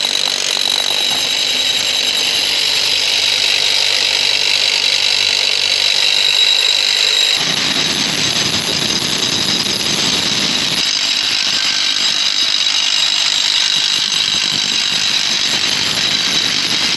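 Corded rotary hammer drill boring holes into hard rock with a large spiral masonry bit: a loud, steady hammering rattle with a high whine. The sound shifts about seven seconds in, becoming fuller and lower.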